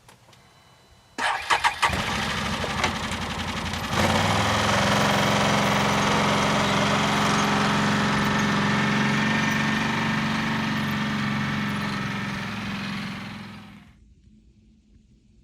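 A vehicle engine cranks and starts about a second in, grows louder a few seconds later and runs steadily, then fades out near the end.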